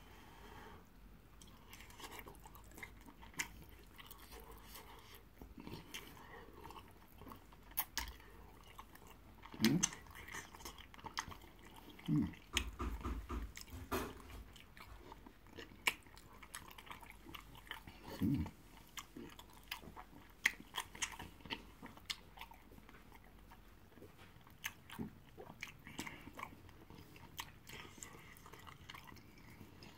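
Close-miked eating sounds: chewing and biting on fufu and egusi soup taken by hand, with many small wet mouth clicks and smacks throughout and a few short low hums.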